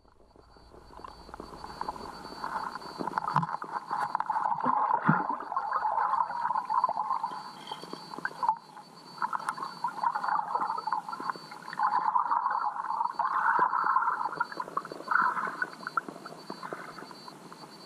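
River water heard underwater, muffled: a crackling, rushing noise that builds up over the first few seconds and then swells and eases, over a faint steady high tone.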